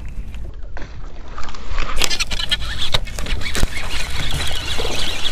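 Wind buffeting the microphone as a low rumble over rippling water. From about two seconds in, a louder wash of water splashing and knocking around the boat.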